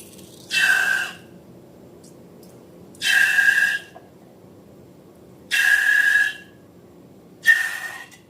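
Four short bursts of rushing air, each with a whistling tone, evenly spaced about two and a half seconds apart.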